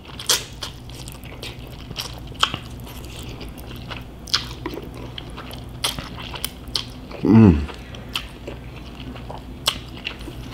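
Close-up eating sounds of a person slurping thin cold Korean bibim noodles and chewing them, with many short wet clicks and smacks. About seven seconds in there is a brief falling hum from the eater's voice.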